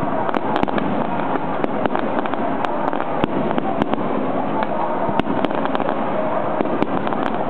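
Aerial firework shells bursting one after another: a steady, dense crackle with many sharp pops scattered through it.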